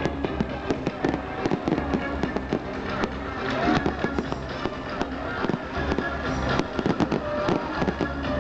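Fireworks bursting in a dense, irregular run of bangs and crackles, over music playing.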